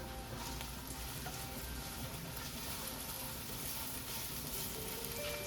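Yellow onions sizzling steadily in hot olive oil over medium heat, just added to the pan to brown.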